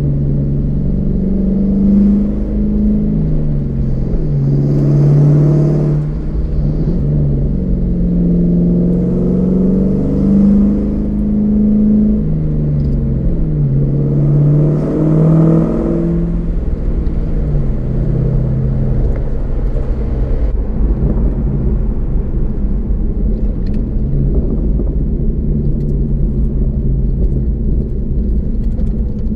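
1997 Ford Mustang GT's 4.6-litre SOHC V8 through an SVO Borla side-exit exhaust, heard from inside the cabin with the top up. The engine note climbs and drops back about four times as the car pulls up through the gears, then settles to a steady drone while cruising.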